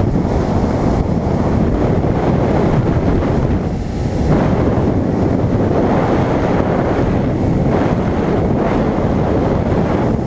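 Wind buffeting the camera microphone and water rushing and spraying off the hull of a bass boat running at speed; a steady, loud rush.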